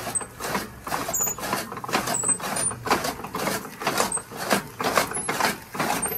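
Hand-cranked chaff cutter (toka) chopping green fodder: the flywheel's blades slice through the stalks in a quick, uneven run of crunching chops and mechanical clatter, the machine turned by hand because its electric motor is without power.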